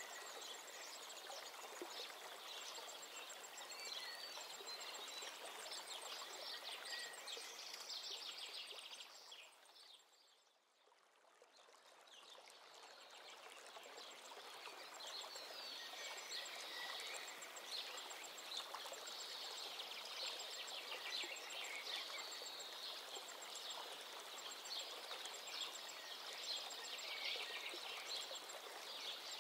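Faint chirping like small birds over a steady background hiss, with a fast, thin ticking above it. The whole bed fades almost away about ten seconds in, then builds back up.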